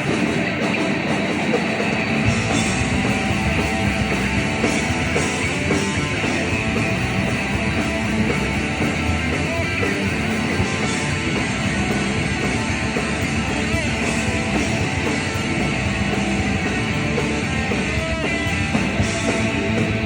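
Live rock band playing loud, guitar-driven rock with no singing.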